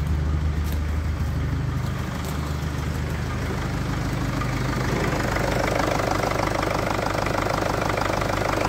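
Mercedes-Benz OM611 2.2 CDI four-cylinder common-rail diesel idling. A low exhaust note at the tailpipe gives way, about five seconds in, to the engine's rhythmic diesel clatter heard from the open engine bay.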